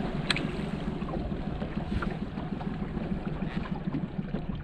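Boat motor running steadily under way, with wind rumbling on the microphone and one sharp click near the start.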